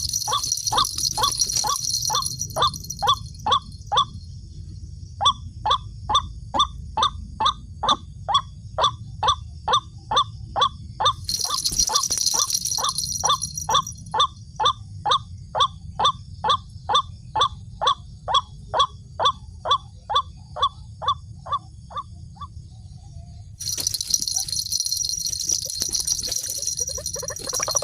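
White-breasted waterhen's ruak-ruak call repeating in a steady, even rattle of short notes, about three a second, the call used to lure the birds to the snare; it pauses briefly near the start and stops a few seconds before the end. A high hiss swells and fades in between.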